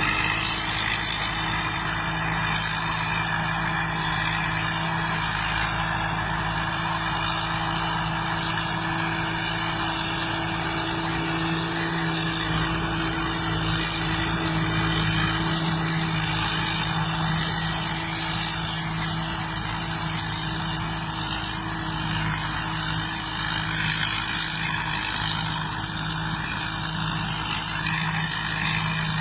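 Combine harvester running steadily: an even engine drone with a thin high whine above it, holding without a break.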